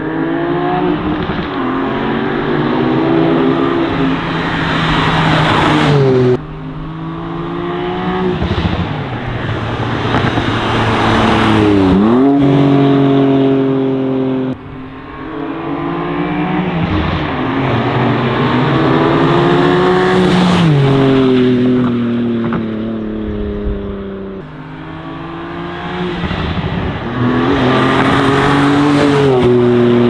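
BMW M2 G87's S58 twin-turbo inline-six, through a TFL Italy catback exhaust with its valves open, accelerating hard past on several runs. On each run the engine note climbs through the gears, then drops sharply as the car goes by.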